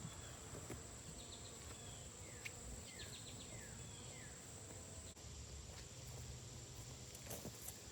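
Faint outdoor ambience: a steady high-pitched insect trill, with several short falling bird chirps in the first half and a few faint clicks near the end.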